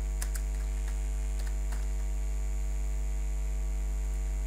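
Steady electrical mains hum picked up by the recording, with a few faint keyboard clicks in the first couple of seconds.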